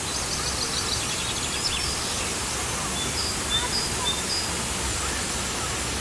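Steady rushing background noise with small birds chirping: short high chirps repeat in a series about three seconds in, after a faint rapid twitter near the start.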